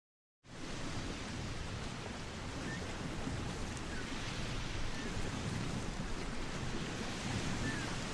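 Ocean surf washing on a shore, a steady rush of waves that starts suddenly about half a second in after dead silence.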